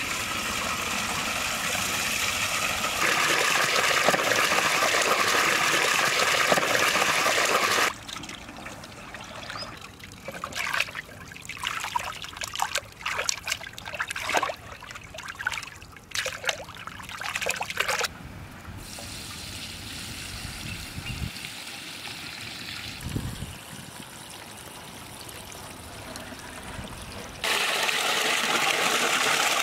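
Water gushing from a wide hose pipe into a large aluminium pot, a steady pour. After about eight seconds it gives way to irregular splashing as hands slosh and rub cut fish pieces in the water, then a quieter stretch. The pouring starts again near the end.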